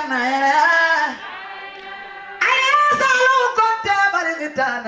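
A woman's voice singing without accompaniment, in long sliding, wavering notes. It softens for about a second and a half, then comes back in loud and higher.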